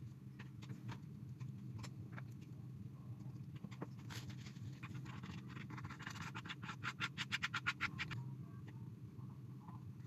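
Hand working dye through a layer of shaving-cream foam: soft scratching and squishing, with a quick run of rapid strokes, about seven a second, for about two seconds in the middle. A steady low hum runs underneath.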